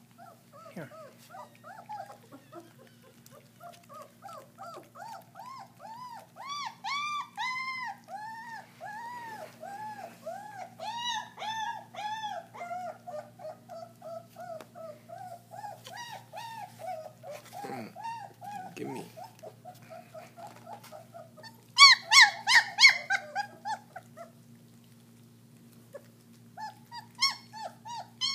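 German shepherd puppies, about three and a half weeks old, whining in a long string of short rising-and-falling cries, a few each second. A little over twenty seconds in, the cries turn into a louder burst of yelps, then stop briefly and start again near the end.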